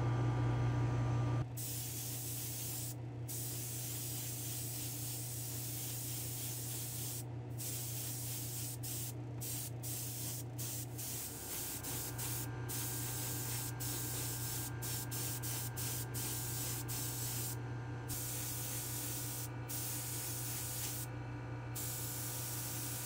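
Airbrush spraying candy orange paint: a steady hiss that starts about a second and a half in and stops briefly several times between trigger pulls. A steady low hum runs underneath.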